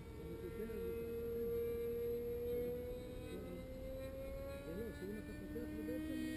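Two-stroke glow engine of a model airplane (Rossi 53 with tuned pipe) running as a thin, steady whine that slowly rises in pitch, with a second, lower note joining about five seconds in.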